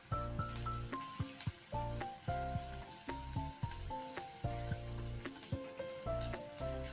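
Chopped onions and dried red chillies frying in ghee in a steel kadai, sizzling as a steel ladle stirs and scrapes them, with short clicks of the ladle on the pan. Background music with a steady bass plays over it.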